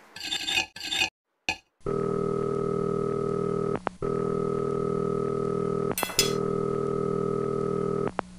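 Cutlery clinking against a plate. Then, from about two seconds in, a steady buzzing drone, twice broken briefly by a click, that cuts off suddenly at the end.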